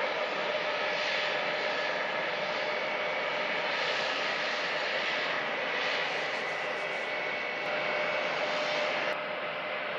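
Airbus A320's turbines running at idle: a steady jet rush with a constant high whine. The sound drops abruptly a little before the end.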